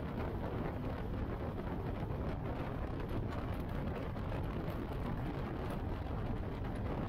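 Motorcycle cruising at road speed: a steady engine drone mixed with wind rushing over the microphone.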